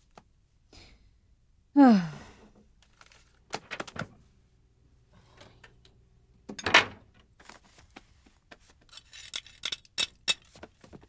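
A short sigh that falls in pitch, then a couple of sharp thumps, and near the end a quick run of clicks and metallic rattles as someone handles a wheelchair and pushes up out of it.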